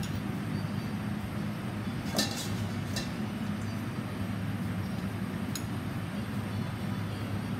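A few light clinks of metal serving spoons against a stainless steel mixing bowl and a plate as salad is scooped and plated, over a steady low hum.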